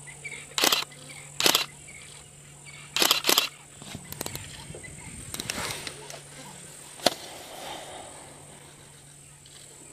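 Lions squabbling over a buffalo calf kill: half a dozen short, harsh snarls in the first seven seconds, over a steady high drone of insects.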